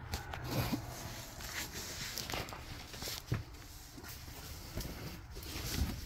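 Footsteps and rustling handling noise from a phone being carried as the person walks, with a few irregular soft knocks.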